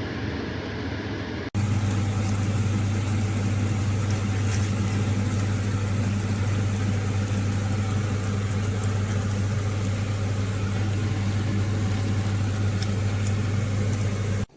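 A steady mechanical hum over a constant hiss, which breaks off for an instant and comes back louder about a second and a half in.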